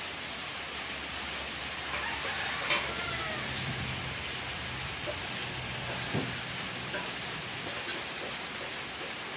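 Steady rain falling and pattering on surfaces, with a few sharper drips or ticks standing out now and then.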